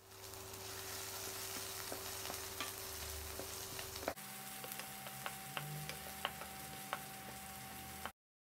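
Chopped red onions sizzling in hot oil in a non-stick pan, then stirred with a wooden spatula, with scattered light clicks of the spatula against the pan. The sound changes abruptly about four seconds in.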